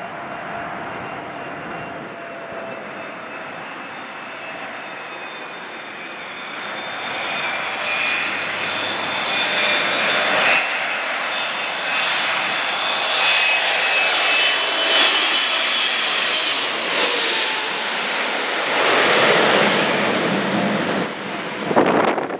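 Boeing 777-300 jet airliner on final approach passing directly overhead: its twin turbofan engines grow steadily louder, with a high fan whine over the rush of air, peak as it goes over, then begin to fade as it heads away. Wind buffets the microphone near the end.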